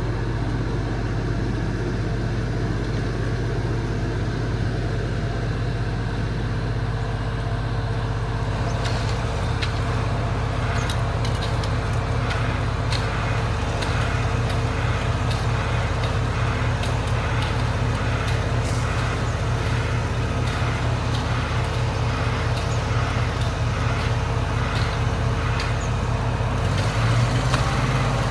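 A motor vehicle's engine running with a steady low hum, with scattered light ticks over it from about nine seconds in.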